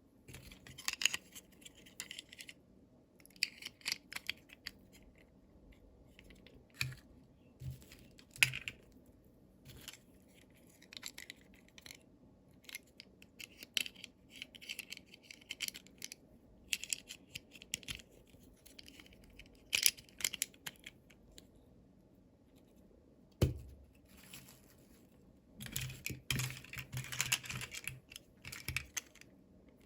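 Small plastic toy packaging being handled and opened by hand: scattered taps, clicks, crinkles and tearing in short irregular bursts, with one sharp knock about two-thirds through and a busier stretch of crinkling near the end.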